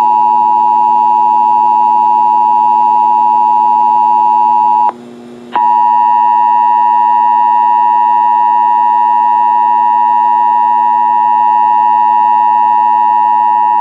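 Emergency Alert System attention signal: the steady two-tone 853 and 960 Hz alarm tone that opens an Ohio Required Monthly Test. It breaks off for about half a second about five seconds in, then resumes, with a faint low hum underneath.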